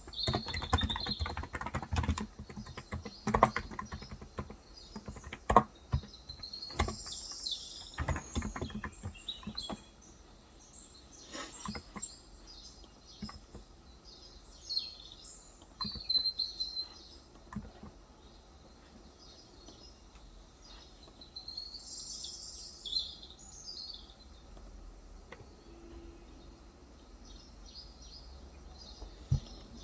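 Typing on a Cox Endeavour electrostatic capacitive keyboard with 35 g switches: a quick run of keystrokes for about the first ten seconds, then only occasional key presses. Small birds chirp outside throughout, with the louder calls coming in short bursts.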